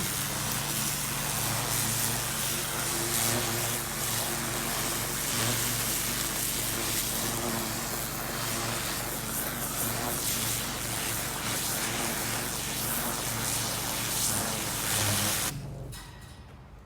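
Pressure washer running, its water jet blasting into soil and weeds: a steady motor drone under a dense spray hiss. It starts suddenly and stops near the end.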